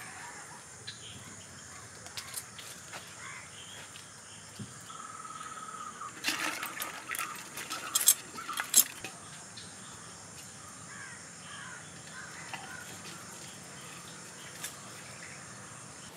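Village yard ambience: a steady high insect drone with crows cawing. Between about six and nine seconds in comes a run of sharp clicks and knocks as live river crabs are handled and dropped into a woven bamboo basket.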